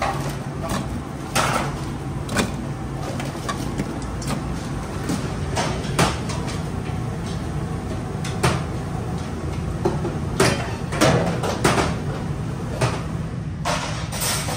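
Kitchen clatter: scattered sharp knocks and clinks of dishes and steel trays being handled, over a steady low hum.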